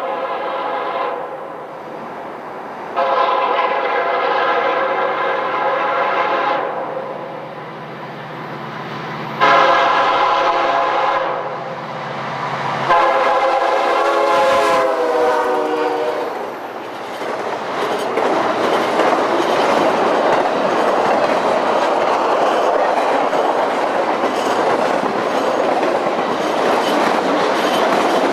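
Florida East Coast freight locomotive sounding its horn in the grade-crossing pattern: a long blast, a short one and a final long one that drops in pitch as the locomotive passes. Then the train's wheels clatter steadily over the rail joints as the cars roll by.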